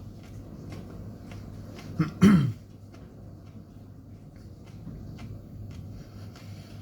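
A man chewing a hot chili pod, with faint mouth clicks, and a single short cough a little over two seconds in, the loudest sound, its pitch dropping as it ends.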